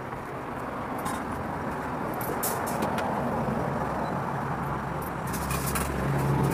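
Street traffic: a motor vehicle's engine rumble growing louder, with a low hum strongest near the end. A few light clicks sound over it.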